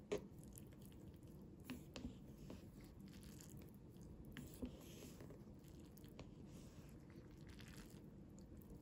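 Chopsticks stirring and lifting instant noodles in a paper Cup Noodle cup: faint wet squishing with a few light clicks of the chopsticks, the sharpest just at the start.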